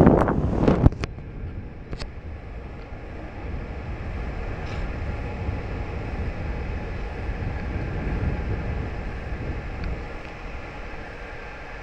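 Wind buffeting the microphone in loud gusts in the first second, then a steady low rumble of wind, with a light click about two seconds in.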